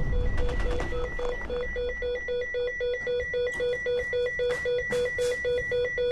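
Electronic alarm beeping rapidly and evenly, about four short beeps a second, a low and a high tone sounding together. It becomes steady about a second and a half in.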